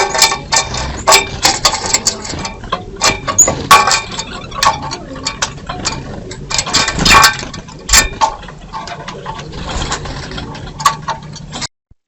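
Birds feeding at a feeder: a busy, irregular run of sharp clicks, taps and scuffles as they peck and jostle at it. The sound cuts off suddenly near the end.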